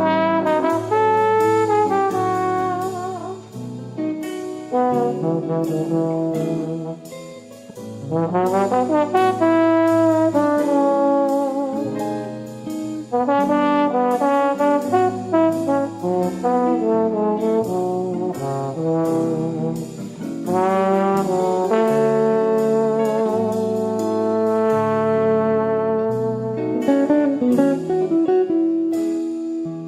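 Background music led by brass, trombone and trumpet in a jazzy style, with a steady beat and melodic runs that slide up and down.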